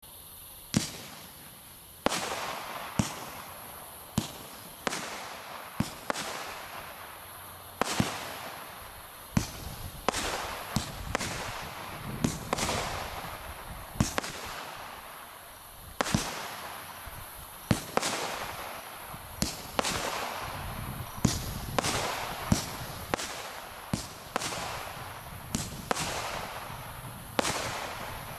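Small 16-shot consumer fireworks multishot cake firing shot after shot: sharp bangs of launches and breaks, roughly one a second, each trailing off before the next.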